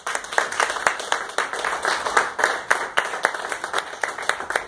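Audience applauding, a small crowd with individual claps distinct, slowly dying down toward the end.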